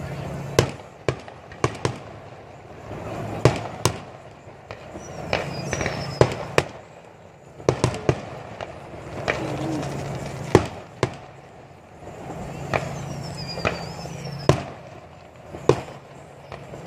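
Fireworks going off: a run of sharp bangs at irregular intervals, some close together, with a few high whistles between them.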